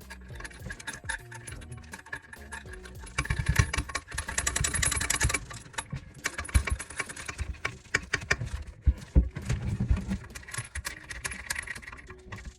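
Irregular metallic clicking and clinking of hand tools on tank-bolt hardware as the toilet tank-to-bowl bolts are tightened, busiest in two spells, about three seconds in and again near the end.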